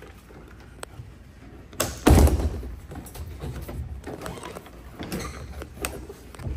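Hard folding truck bed cover being lifted and handled: a sharp click about a second in, a loud thump a second later, and lighter knocks and rattles of the panels near the end.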